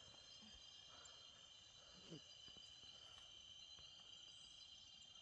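Near silence with a faint, steady chorus of forest insects such as crickets, holding a few high pitches, and a small soft knock about two seconds in.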